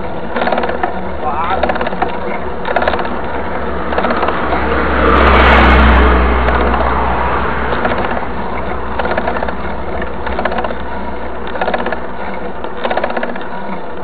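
Mountain bike freehub ratchet ticking rapidly as the bikes coast, over wind and tyre noise on asphalt. A louder rush swells up about five seconds in and fades a couple of seconds later.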